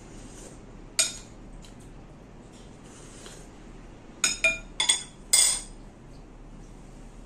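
Spoon and chopsticks clinking against a ceramic noodle bowl while eating. One ringing clink comes about a second in, then a quick run of about five clinks around four to five and a half seconds in, the last the loudest.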